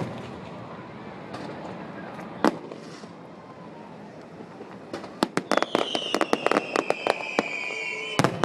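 Fireworks display: a few single bangs in the first seconds, then, from about five seconds in, a rapid run of crackling pops. Over the pops a high whistle slowly falls in pitch, and a loud bang comes near the end.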